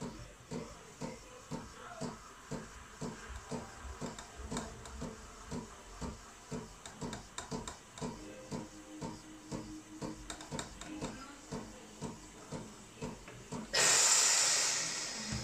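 Sage Barista Pro espresso machine pulsing rhythmically, about two to three soft thumps a second. Near the end its steam wand opens abruptly with a loud, steady hiss into a stainless milk jug.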